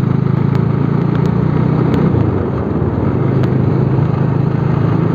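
Bajaj Dominar 400's single-cylinder engine running steadily as the motorcycle rides along, with road and wind noise. The engine note dips briefly about halfway through, then picks up again.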